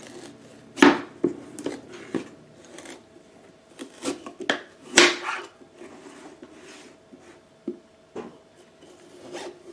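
Chef's knife cutting down through a raw pumpkin's tough rind and flesh: irregular crunches and knocks as the blade is worked through. The loudest comes about five seconds in.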